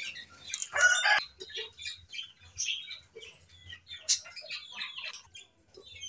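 Caged pet birds chirping and calling in short, scattered notes, with a brief burst of rustling about a second in and a sharp click near four seconds.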